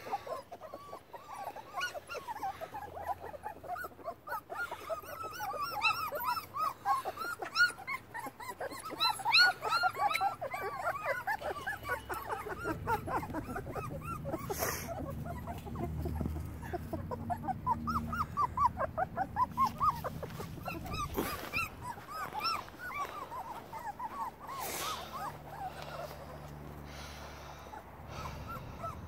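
A litter of young labradoodle puppies whimpering and yipping, many short high cries overlapping, with a few sharp knocks in between.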